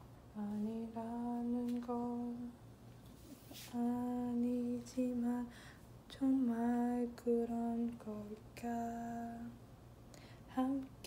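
A woman humming a slow tune in held, steady notes, in short phrases with brief pauses between them.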